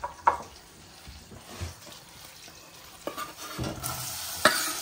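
A knife knocks once on a wooden chopping board. Then, about three and a half seconds in, chopped onion is scraped off the board into a stainless frying pan of hot butter with a few sharp knocks and starts to sizzle: the start of softening the onions in butter.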